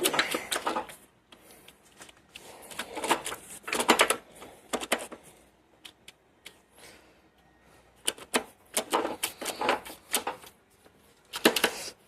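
Bursts of rapid metallic clicking and tapping from a Ford 8340 tractor transmission, as the shaft is rotated by hand to work a bearing down onto it. There are four bursts with short quiet gaps between them.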